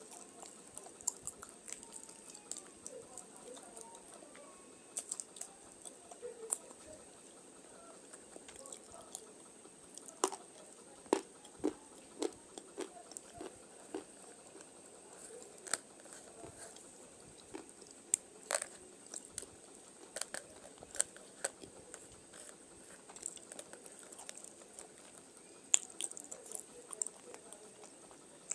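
A thin, brittle, layered stone slab being snapped and crumbled by hand, giving irregular sharp cracks and crackles with scattered louder snaps.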